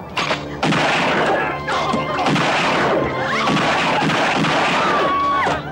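Film action soundtrack: a loud, dense burst of crashing and gunfire-like noise over music, with voices shouting through it, starting about half a second in.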